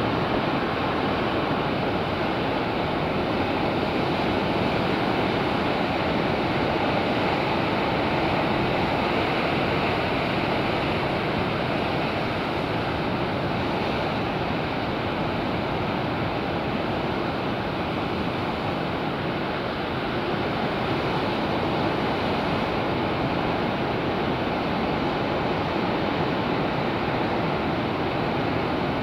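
Pacific surf breaking and washing over rocks in a steady, continuous rush of waves and foam, with a low rumble of wind on the tape-covered microphone.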